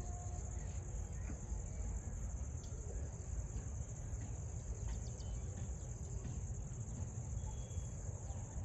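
Crickets or similar insects chirring: one unbroken high-pitched trill, with a low steady rumble underneath.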